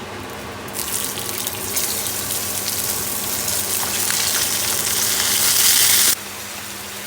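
Tap water running into a sink, getting louder, then shut off abruptly about six seconds in.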